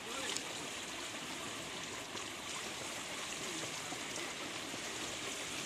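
Steady wash and splashing of pool water stirred by a swimmer's backstroke arms and kicks.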